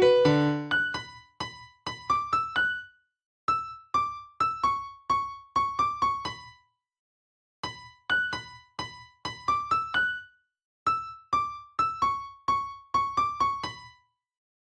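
Background music: a sparse, high keyboard melody of single notes in four short phrases, with brief silent gaps between them. It opens on a fuller chordal passage that dies away within the first second.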